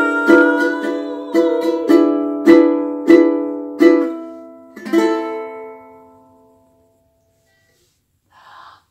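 Ukulele strummed chord by chord, with a woman singing a held, bending note at the start. A last strum about five seconds in rings out and fades away, ending the song.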